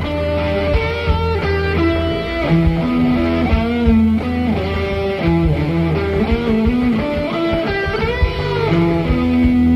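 Electric guitar played through a Fuzz Face fuzz pedal: a single-note lead line with string bends and vibrato over a steady low note underneath.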